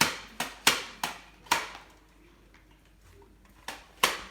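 Nerf blasters firing foam darts: about five sharp snaps in quick succession, then a pause and two more shots near the end.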